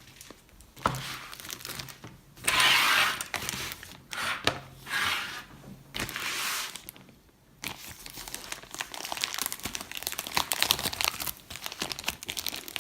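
An Amazon delivery packet being handled, its packaging crinkling in a few loud swishes, then a run of dense crackling.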